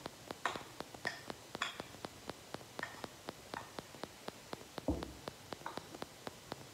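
A metal spoon scraping and clinking against a plastic bowl as cornflour is scraped out into a dish, with a dull knock about five seconds in. A faint, even ticking of about five a second runs underneath.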